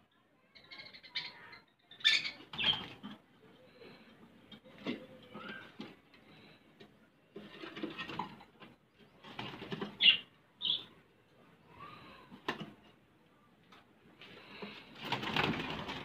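Indian ringneck parakeets making scattered short squawks and chatter, with scuffling and rustling noises between the calls and a longer, louder scuffle near the end.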